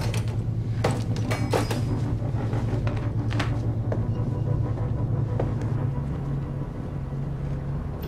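A low, steady droning hum, with a few short knocks and clicks scattered through the first half.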